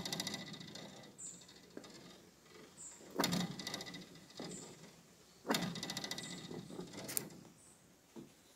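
Sneaker soles thumping on the wooden planks of a footbridge, three times about two seconds apart, each with a brief ringing after it. A short high chirp repeats about every second and a half in the background.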